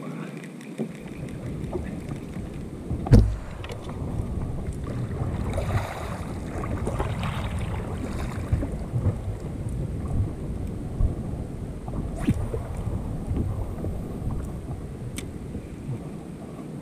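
Wind buffeting the microphone, with a kayak paddle splashing through the water for a few strokes around the middle and a single sharp knock about three seconds in.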